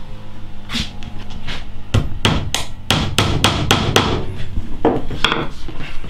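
Wooden-handled hammer driving small nails through a wooden board into the bench board beneath, pinning it in place: a couple of spaced blows, then a quick run of about ten taps from about two to four seconds in, then a few more.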